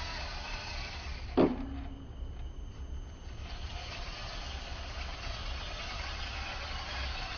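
Steady whirring of a 3D-printed 4WD RC truck's motor and gear drivetrain. A single sharp knock comes about a second and a half in, after which the whir dips for a couple of seconds and then returns.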